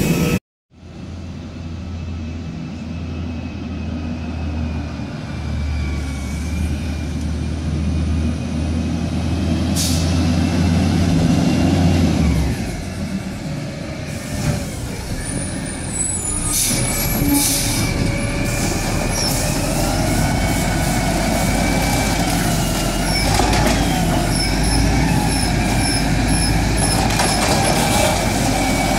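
Peterbilt 320 garbage truck with an Amrep Octo automated side-loader: its diesel engine runs as it creeps up, with short air-brake hisses, then a whine as the hydraulic arm reaches out to grab the cart. A high beeping alarm repeats about twice a second near the end.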